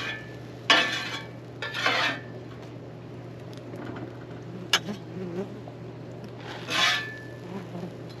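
Metal spatula scraping across a Blackstone steel flat-top griddle in three short strokes, with one sharp clink about five seconds in, over a steady low hum.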